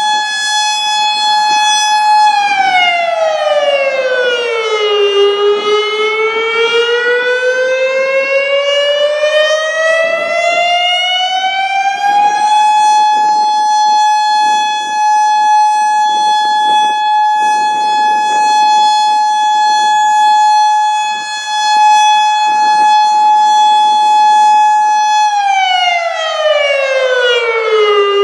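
Federal Signal Modulator 6048 electronic siren sounding its custom timed attack signal. A loud, steady tone drops in pitch about two seconds in, rises slowly back over about seven seconds, holds steady for about thirteen seconds, then drops again near the end.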